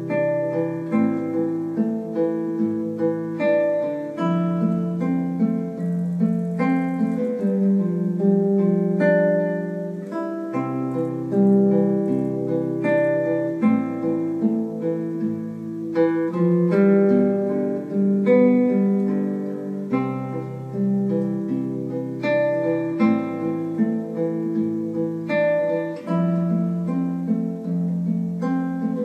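Background music on acoustic guitar, a continuous run of plucked notes.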